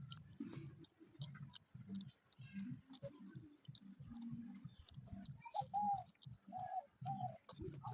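Faint chewing of a samosa: soft, uneven mouth pulses with small crunchy clicks. Several short bird calls sound in the background in the second half.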